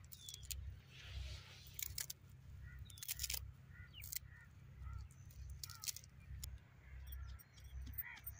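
Small knife cutting bunches of fresh coriander against the thumb: a series of sharp, separate snips through the stems, over a low wind rumble. Near the end a wooden pestle starts knocking in a stone mortar, pounding the radish and coriander.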